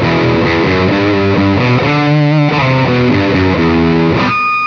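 Electric guitar played through a Caline Jaguar Classic High Gain Distortion pedal with its bias knob turned fully down, giving a high-gain distorted riff of quickly changing notes. One note rings on its own near the end. With the bias down, the top strings sound duller and fuzzier.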